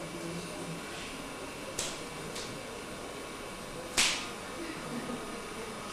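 Three sharp slaps over a steady hiss: one a little under two seconds in, a fainter one just after, and the loudest about four seconds in, each dying away quickly.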